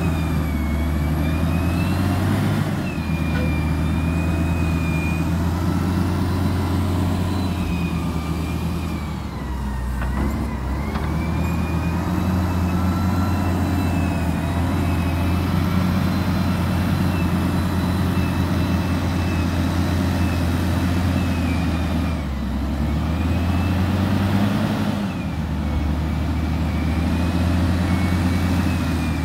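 DISD SD300 wheel loader's diesel engine running under load as it pushes dirt, with a wavering high whine over the low engine drone. The engine eases off briefly about a third of the way in and again about three quarters of the way through.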